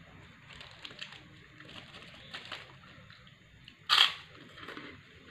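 A single loud, sharp crunch as a kerupuk cracker is bitten about four seconds in, among quieter small clicks and rustles of eating.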